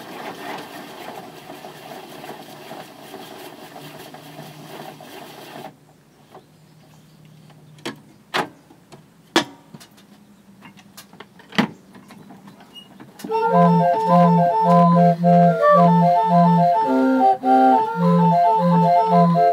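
A 20-note hand-cranked street organ starts playing a tune about two-thirds of the way in: a melody over a pulsing bass, roughly two bass notes a second. Before it starts, a few sharp knocks sound as the wooden case is closed up.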